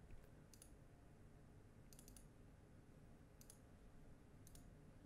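Near silence with a few faint computer mouse clicks: one about half a second in, a quick double click around two seconds, and single clicks near three and a half and four and a half seconds.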